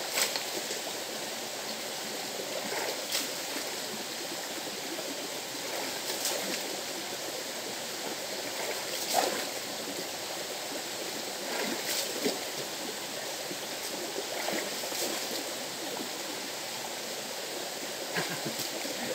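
River water flowing steadily. Short sharp knocks come roughly every three seconds.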